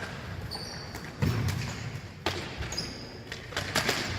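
Ball hockey play: sharp knocks of sticks, ball and boards at irregular intervals, with a few short high squeaks.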